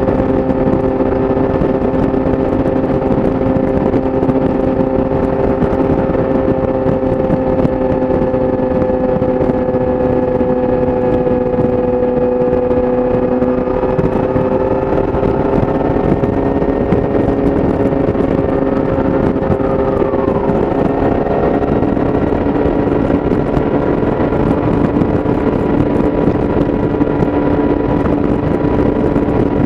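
Yamaha YZF-R6's inline-four with an Akrapovič exhaust, running at a steady high cruising speed, heard onboard over wind and road noise. The engine note edges up slightly about halfway through.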